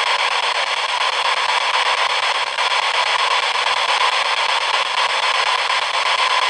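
Spirit box scanning through radio frequencies, giving out a steady hiss of radio static.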